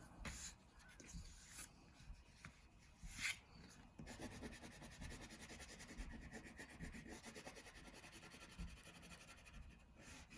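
Faint scratching of a crayon colouring on paper: a few separate strokes, then from about four seconds in a quick, even back-and-forth scribble.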